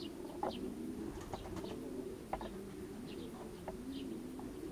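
Racing pigeons cooing steadily in the loft, with a few short higher chirps now and then.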